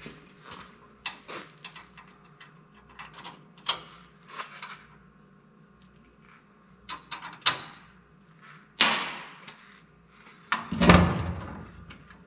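Metal parts handled at a car's rear axle end: scattered light clicks and clinks, then a scraping rattle about nine seconds in. The loudest sound, a heavier clattering rattle about a second later, comes as the drum brake backing plate with its shoes is fitted onto the axle housing.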